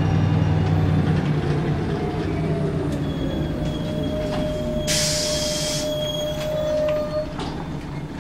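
A Scania L94UB single-decker bus heard from inside the saloon. Its Scania DSC9 six-cylinder diesel hums strongly for about the first second, then falls away as the bus slows, with a whine falling in pitch. A steady high whine runs from about three to seven seconds in, and a short hiss of air, typical of the air brakes, comes about five seconds in.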